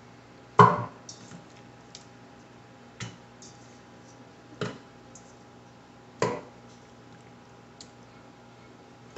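Turkey wings dropped one at a time into a cooking pot: four thuds about one and a half seconds apart, the first the loudest, with a few small clicks between them.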